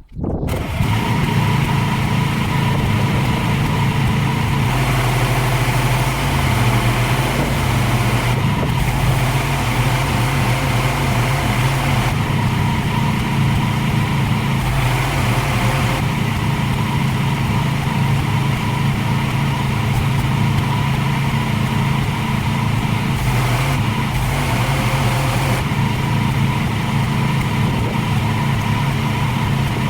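Pressure washer cutting in suddenly, then running steadily: a loud, even drone with a constant hum and a hiss over it.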